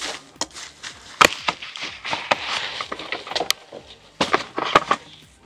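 A boxed glass electric kettle being taken out and handled: several sharp knocks and clicks, the sharpest about a second in and near the end, with rustling between them.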